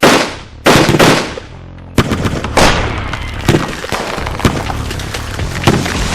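Shotgun blasts: three quick shots in the first second. About two seconds in, background music with a beat comes in.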